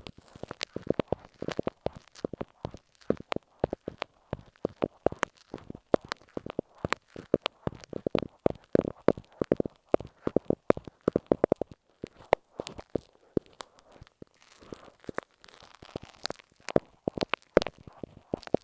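Glue stick worked over masking tape on an earphone microphone, giving close-up sticky crackles and taps in quick irregular runs, sparser for a few seconds past the middle.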